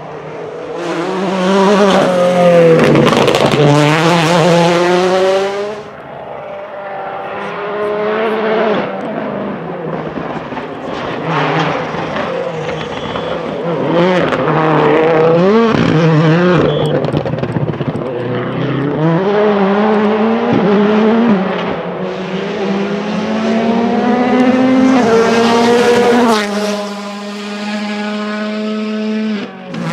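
Ford Fiesta WRC rally car's 1.6-litre turbocharged four-cylinder engine revving hard and lifting off again and again as the car drives past at rally speed several times, its note climbing and dropping with each gear change.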